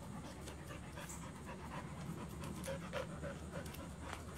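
A dog panting.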